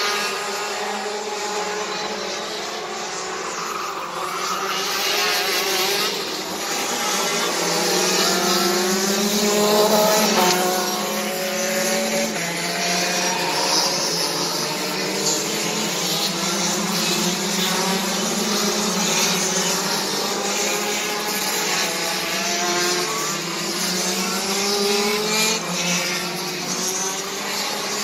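Several racing kart engines running round a circuit at once, their pitches rising and falling over one another as the karts accelerate and slow through the track.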